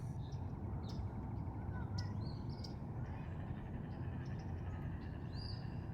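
Small songbirds giving scattered short, high chip calls, a few at a time, over a steady low background rumble.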